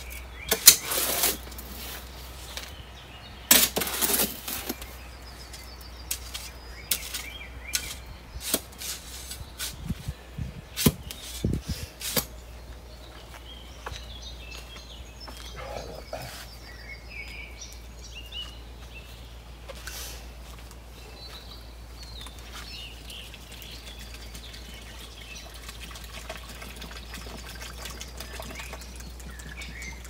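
Outdoor ambience of small birds chirping, with a scatter of sharp, irregular knocks and clatters through the first dozen seconds, then a steady low rumble under the birdsong.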